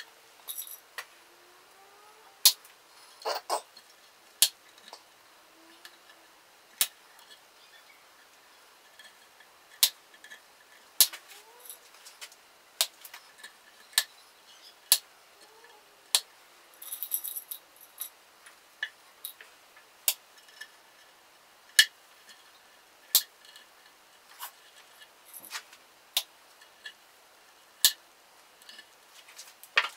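Wooden cocktail sticks being snipped off with small hand cutters: a series of sharp, separate clicks and snaps at uneven gaps, with light handling rustle around the middle.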